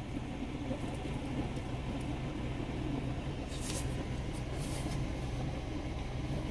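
Steady low hum inside a car cabin, with a few brief, faint crackles about halfway through.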